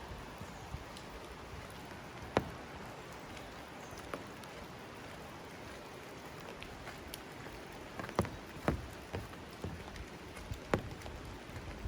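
Steady rain falling, with scattered sharp taps of heavier drops. The loudest tap comes about two and a half seconds in, and a cluster of taps follows near the end.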